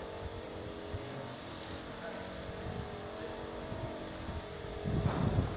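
A steady motor hum with several held tones over a low rumble; a louder low rumble comes in near the end.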